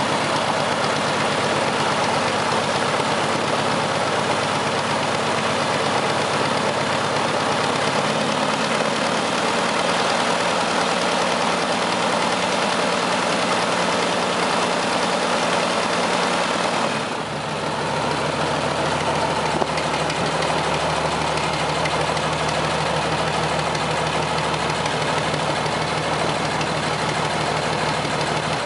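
UL Power UL520iS six-cylinder aircraft engine running on its first start, turning a pusher propeller. The engine note shifts slightly about eight seconds in, and again about seventeen seconds in after a brief dip in loudness, then holds steady.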